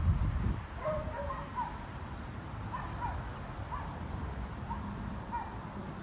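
Small dog whimpering: short high whines, repeated about eight times, some sliding down in pitch. A low thump right at the start.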